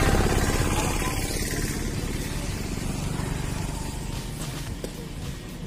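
Two-stroke petrol chainsaw engine running, loudest at the start and easing off gradually.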